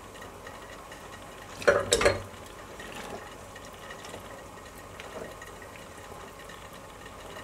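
Quince pieces simmering in thick jam syrup in a stainless steel pot, bubbling with a low hiss as a metal slotted spoon stirs them through. About two seconds in comes one loud knock of utensil against the pot, and a few faint scrapes and ticks follow.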